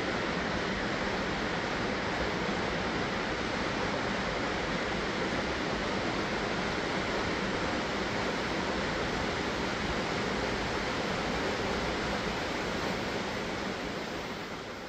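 Waterfall on the Orlias mountain stream, pouring with a steady, unbroken rush of water. It fades down near the end.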